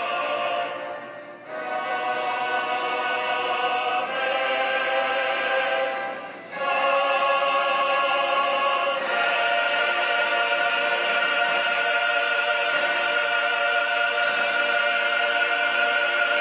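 Background music: a choir singing long held chords with vibrato, moving to a new chord every two to three seconds.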